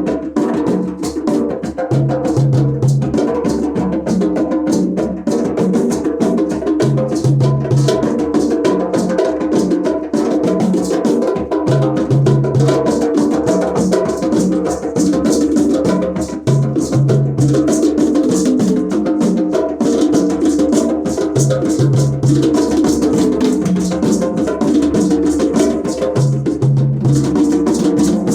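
Percussion music: drums and a wood-block-like clicking part keep up a steady, dense rhythm, with a short low bass figure coming back about every five seconds.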